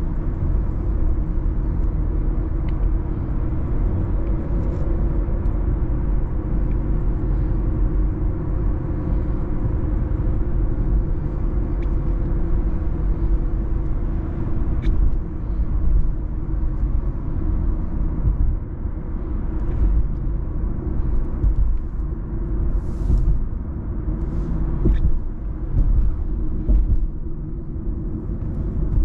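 Infiniti Q50 driving at highway speed: a steady deep rumble of engine and road noise, swelling and easing a little in the second half, with a few faint ticks.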